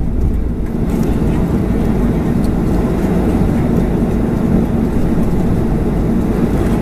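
Cabin noise of a Boeing 737-400 taxiing after landing: a steady low rumble from its CFM56-3 engines at idle and the airframe rolling along the taxiway.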